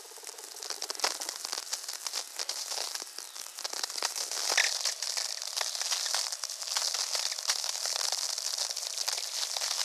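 VLF natural radio converted straight to audio: a dense, irregular crackle of sferics, the clicks and pops of radio bursts from distant lightning strikes, over a steady hiss, with a brief higher tone about halfway through.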